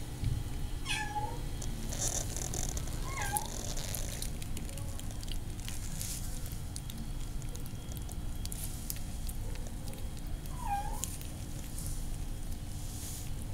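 Kitten meowing in three short, high calls: about a second in, around three seconds and near eleven seconds, while being held and syringe-fed. A low rumble and small clicks of handling run under them.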